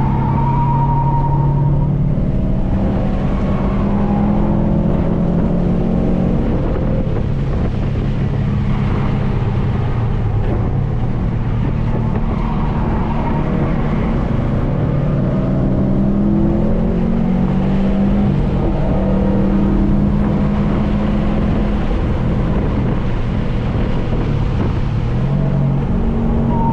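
Subaru WRX STI's turbocharged 2.5-litre flat-four driven hard on track, heard inside the cabin. Its pitch climbs under acceleration and drops back at each gear change and braking zone, again and again. The tyres squeal briefly through a corner at the start and again at the very end.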